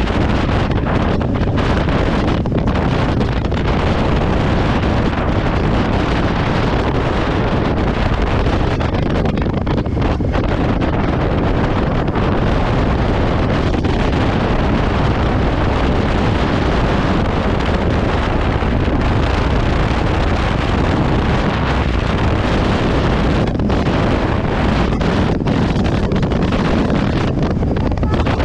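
Wind rushing over the microphone of an action camera on a moving Honda motorcycle, with engine and road noise beneath, a loud, even rush.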